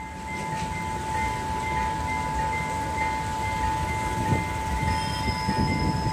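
Railway level-crossing warning alarm sounding: a steady tone with a higher beep repeating about twice a second. A low rumble builds under it near the end as a train approaches.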